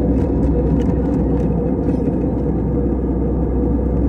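Steady cabin noise of a passenger airliner climbing after takeoff: the engines and rushing air heard from inside the cabin as a deep, even noise.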